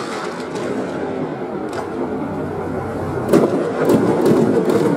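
Fireworks bursting, played back at half speed: a continuous rumble with a sharp crack just before the middle and several more cracks in the last second and a half.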